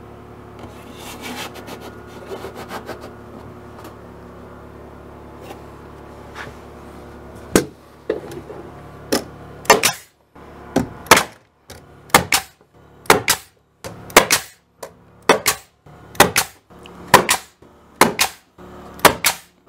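Finish nailer firing nails through a wooden siding board into the studs: a long string of sharp shots, often in close pairs, at about one to two a second, starting about seven seconds in after some quiet handling of the board.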